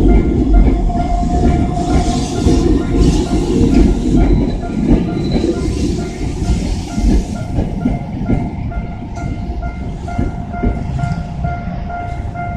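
Tokyo Metro Ginza Line 01 series subway train passing over a level crossing, its wheels rumbling and clattering on the rails, loudest in the first half and then fading away. The crossing's warning bell keeps ringing in an even, rapid rhythm throughout.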